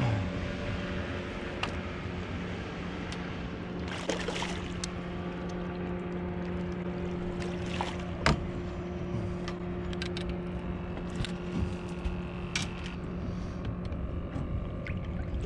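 Steady hum of a boat's motor, with water splashing and dripping and a few sharp knocks on the boat.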